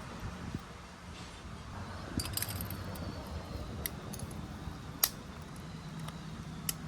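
Small metal parts of an AC compressor shaft seal clinking as they are handled and lined up: scattered light clicks, a quick cluster about two seconds in and the sharpest about five seconds in.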